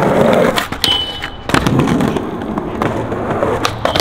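Skateboard wheels rolling over rough concrete, broken by several sharp clacks of the board popping and landing. The loudest crack comes about one and a half seconds in, and two more come near the end.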